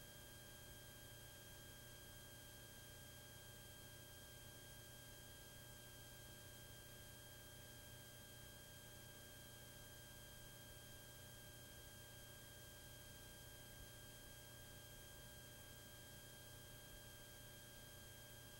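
Near silence: a faint steady hiss with a low hum and a few thin steady tones, the recording's noise floor.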